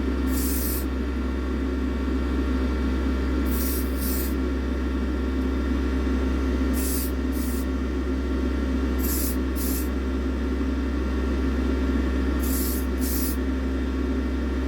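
Short hisses of spray paint in quick pairs about every three seconds, each burst under half a second, as a light single coat goes onto a small diecast car body. A steady hum runs underneath.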